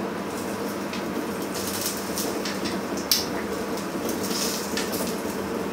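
Asparagus spears sizzling on a hot ridged char-grill pan, beside a pan of eggs simmering in water: a steady bubbling sizzle. A few light clicks of metal tongs against the pan come as the spears are turned, the clearest about three seconds in.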